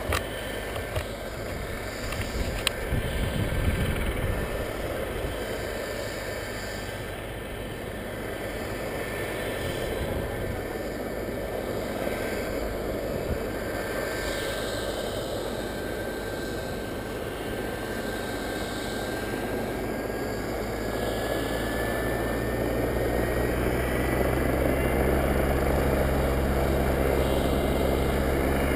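Helicopter running up for take-off: steady engine and rotor noise with a high whine that rises slowly in pitch in the second half, and a low rotor beat growing louder near the end.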